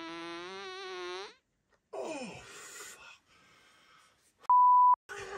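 A long pitched fart, its tone rising slightly, ends about a second in. A short sound falling in pitch follows, and near the end a loud, steady single-tone censor bleep lasts about half a second.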